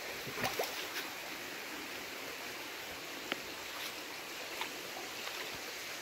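Steady rush of flowing stream or waterfall water, with a few faint clicks near the start and a single sharp tick about three seconds in.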